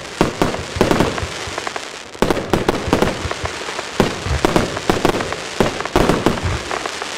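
Broekhoff Magnum P.I. 288-shot compound firework cake firing: a rapid run of launch thumps and bursts, several a second, over a steady noise.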